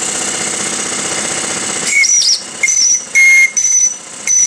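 The model steamboat's small steam whistle gives about five short high toots, starting about two seconds in, with the third the loudest. Before the toots, a steady fast rattling run from the steam plant cuts off suddenly.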